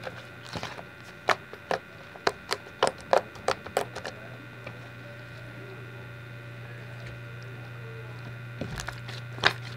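Glitter-filled slime being squeezed and stretched by hand, giving a quick run of sharp clicking pops for the first few seconds, then going quiet apart from a couple more pops near the end. A steady low hum runs underneath.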